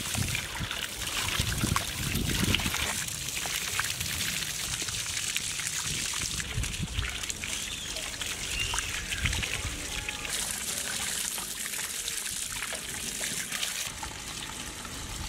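Water poured in a steady stream over raw chicken pieces in a large metal plate, splashing and trickling as the pieces are washed by hand.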